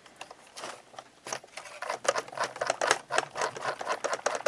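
Light, irregular clicking and tapping of small metal parts: a screwdriver tip and fingers working grease into the gears of a steel gearbox in an RC tank.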